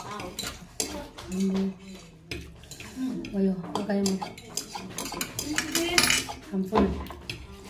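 Metal chopsticks clicking and scraping against a metal baking tray while noodles are picked up, in quick irregular clicks.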